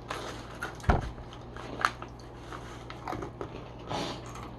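Someone biting and chewing crunchy Moon Cheese pieces: irregular crisp crackles, with a sharper knock about a second in.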